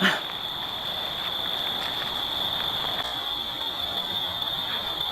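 A steady, high-pitched chorus of night insects, crickets, over a low background hiss, with a short knock right at the start.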